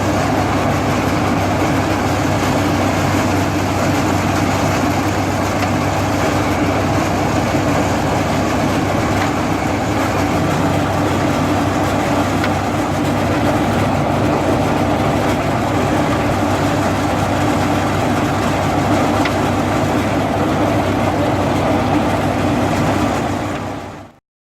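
Engine of a drivable brick-moulding machine running steadily at a constant speed, fading out at the very end.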